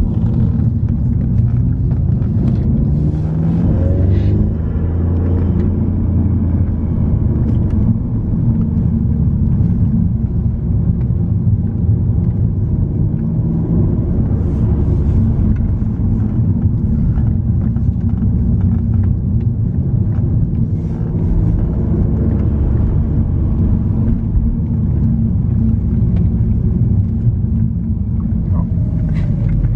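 Car engine and road noise heard from inside the cabin while driving: a steady low rumble, with the engine note rising a few seconds in.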